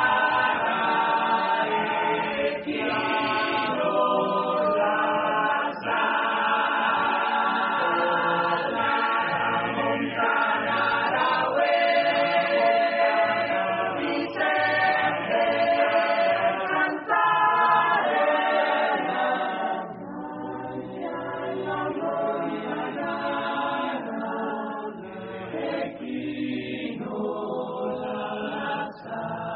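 A choir singing a song in Italian in sustained, harmonised chords.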